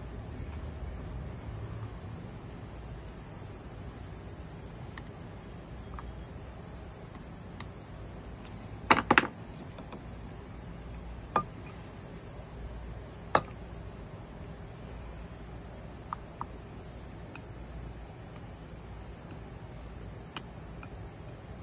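Steady high trill of crickets, with a few light clicks and knocks from soldering work on the glass piece. The loudest is a quick cluster of knocks about nine seconds in, and single taps follow a few seconds apart.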